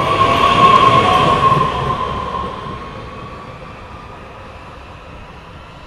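TER regional train passing close by at speed: a rushing rumble with a steady high whine over it, loudest about a second in, then fading away over the next two seconds.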